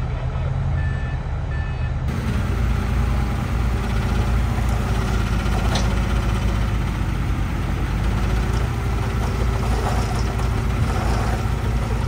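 Diesel engines of small dump trucks and a Komatsu D51PX bulldozer running steadily as the trucks back up and tip soil, with a few short reversing-alarm beeps in the first two seconds.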